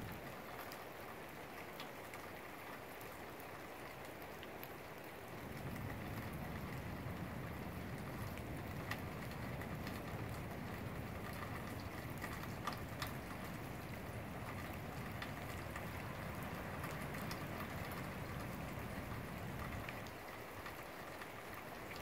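Storm wind blowing through trees, with rain falling. A stronger gust builds about five seconds in and eases off near the end.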